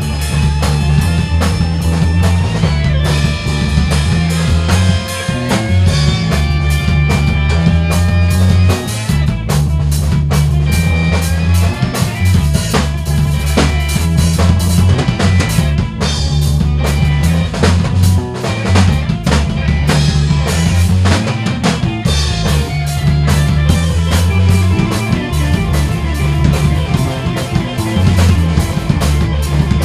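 Band music from a studio recording: a busy drum kit to the fore, with snare and bass drum, over a steady electric bass line and sustained electric keyboard and guitar lines.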